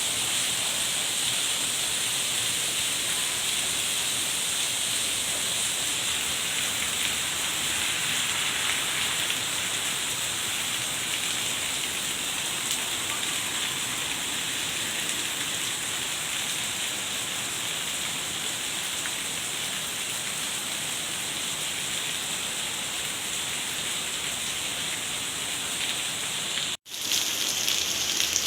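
Heavy rain falling in a steady, dense hiss. Near the end it breaks off for a split second and comes back a little louder.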